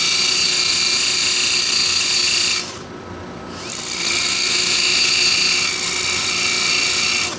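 Thoriated tungsten electrode spun in a cordless drill and ground against a running disc sander to a sharp point for TIG welding: a loud, steady high grinding whine and hiss. It breaks off for about a second midway, then resumes and stops near the end, while the sander's motor runs on steadily underneath.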